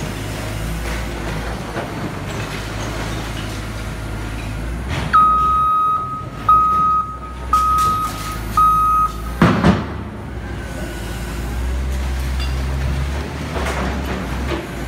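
Caterpillar 950K wheel loader's diesel engine running, with its backup alarm beeping four times, about one beep a second, from about five seconds in. A loud bang comes just after the last beep.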